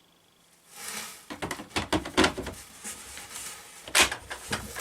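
Plastic parts of a cordless coffee maker being handled and opened: rustling and a quick run of sharp clicks and knocks, with a loud click about two seconds in and another about four seconds in.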